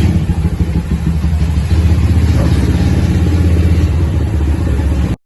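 Motorcycle engine running steadily with a rapid, even pulsing, cutting off suddenly near the end.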